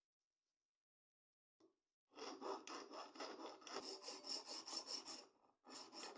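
Rapid back-and-forth abrasive rubbing strokes by hand on the old knife, about five strokes a second. They begin about two seconds in and pause briefly near the end.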